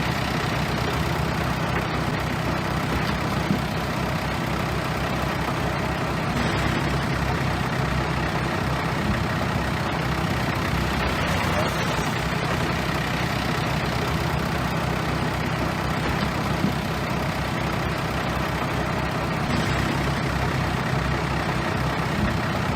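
Bulldozer's diesel engine running steadily, with a couple of brief knocks.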